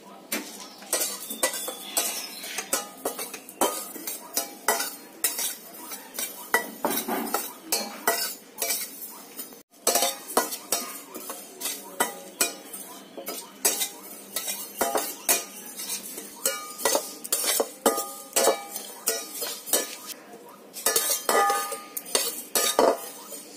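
Metal spatula scraping and clinking against a steel frying pan, stirring dry whole spices (cumin, fennel, fenugreek, coriander and mustard seeds) as they are dry-roasted. Quick repeated strokes, about three a second, some ringing briefly off the pan.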